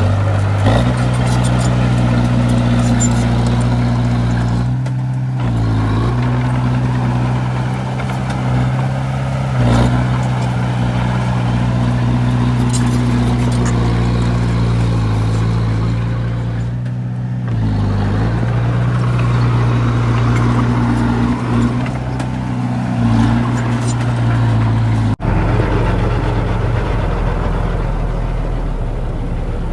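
Heavy diesel earthmoving machinery running steadily, its engine note dipping briefly about five and seventeen seconds in. About twenty-five seconds in the sound breaks off abruptly and gives way to a lower, rougher rumble.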